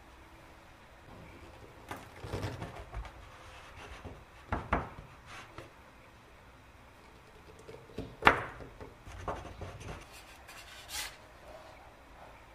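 A drinking glass pressed through soft cookie dough onto a tray to cut crescent shapes, with hands lifting the cut dough: a series of soft knocks and rubbing sounds, the sharpest knock about eight seconds in.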